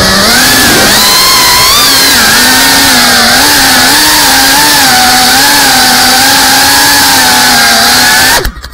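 GEPRC cinewhoop FPV drone's brushless motors and ducted propellers buzzing loudly at a high pitch that wavers up and down with the throttle. The buzz cuts off suddenly near the end as the drone comes down to the ground.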